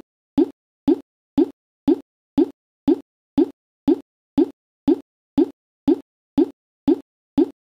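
A short, hollow pop repeating at an exact, even rate of about twice a second, each one dying away quickly into silence.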